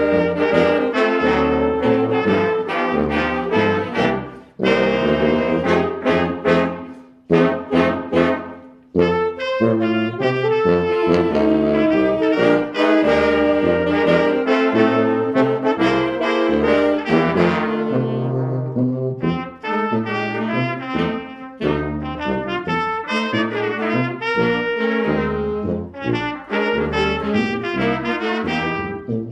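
High school brass-led band playing holiday music: trumpets and trombones over a low bass line. A few seconds in come short, separated chords, then the band goes back to sustained playing.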